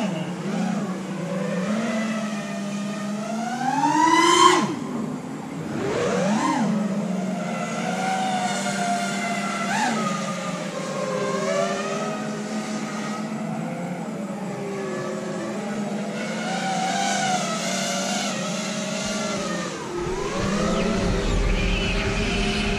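Quadcopter motors on a 5-inch FPV racing drone (Emax RSII 2306 2400kv motors with three-blade 5-inch props) whining in flight, the pitch rising and falling with the throttle. A sharp rising whine about four and a half seconds in, and another about two seconds later, mark hard throttle punches.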